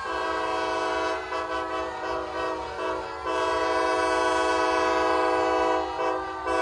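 Multi-chime train horn sounding a chord: a blast, then a run of short stuttering toots, then one long steady blast that stops about six seconds in.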